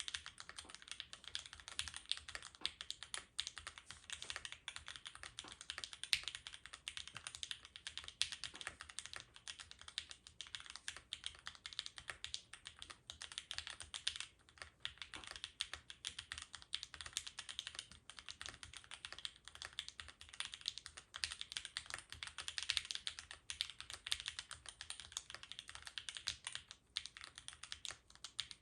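Continuous fast typing on a gasket-mount mechanical keyboard with an aluminium plate, lubed and filmed C3 Equalz Banana Split linear switches and GMK keycaps: a dense stream of light, clacky keystrokes, with short pauses about 14 and 27 seconds in.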